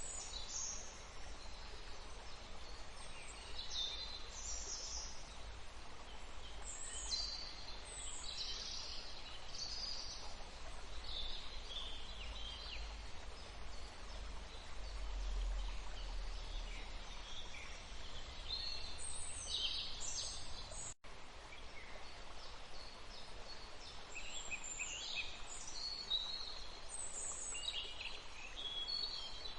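Small birds chirping and calling in short, high phrases over a steady background hiss and low rumble, with the whole sound cutting out for an instant about two-thirds of the way through.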